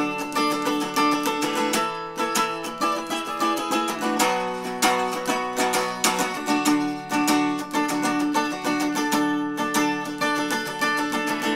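Instrumental break of a song: an electric guitar playing a run of quick picked notes over sustained chords, with no vocals.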